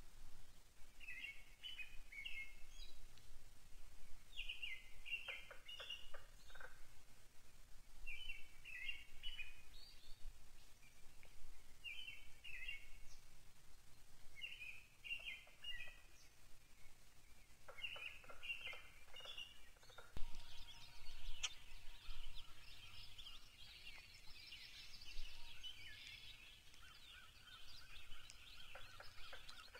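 A songbird singing a short, high, chippy phrase over and over, six times, about every three to four seconds. About two-thirds of the way through, more birds join in and the singing becomes a dense, continuous chorus.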